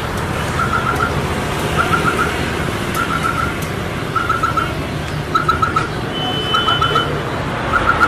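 Street ambience: steady traffic noise with a chirp of four quick, high pips repeating about once a second, and a short higher beep about six seconds in.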